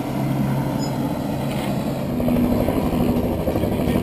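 Aviation fuel truck's engine running steadily, its note rising a little about two seconds in.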